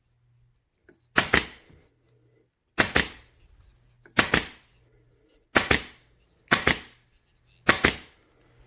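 Meite MT7116LN pneumatic upholstery stapler firing six times, irregularly, about one to one and a half seconds apart. Each shot is a sharp double snap as a fine-wire staple is driven into chair upholstery.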